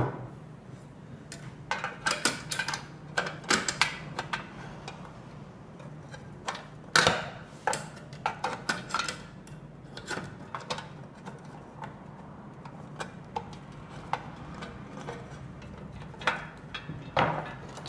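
Irregular small clicks and knocks of a screwdriver and metal parts of a manual string hopper machine being handled during reassembly, with a louder knock about seven seconds in and a cluster near the end, over a steady low hum.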